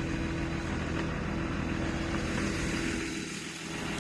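Heavy diesel engine idling steadily, an even low-pitched running sound with a steady hum, easing slightly about three seconds in.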